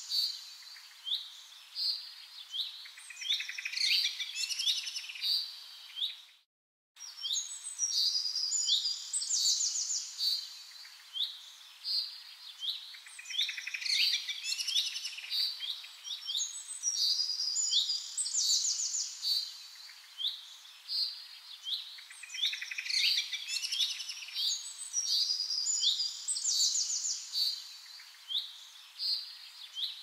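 Songbirds singing: many overlapping short high chirps and trills, with a brief silent break about six and a half seconds in.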